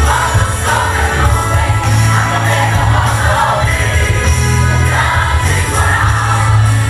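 Live gospel worship music: a band with a strong, steady bass and voices singing together.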